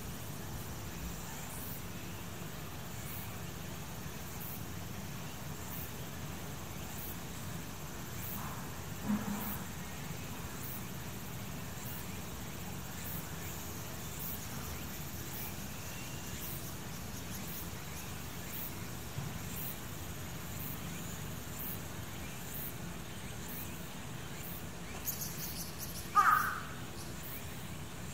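Steady outdoor background hum with faint, even ticking high up about once a second. A short bird call stands out about two seconds before the end, with a fainter sound around nine seconds in.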